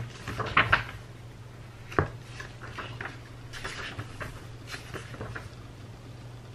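Paper pages of a thick textbook being turned and smoothed flat by hand, with crisp rustles and crinkles. A single sharp knock comes about two seconds in, and softer rustling follows.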